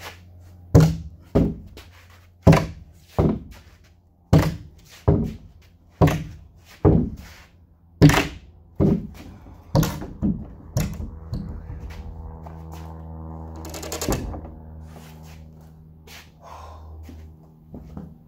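Large wooden slabs knocking against one another as they are tipped through a standing stack: about fourteen heavy wooden thunks, roughly one every second, over the first eleven seconds. A steady low machine hum then carries on.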